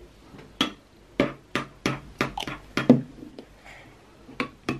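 Metal spoon knocking against a ceramic bowl while stirring slime, a string of irregular short taps about two a second.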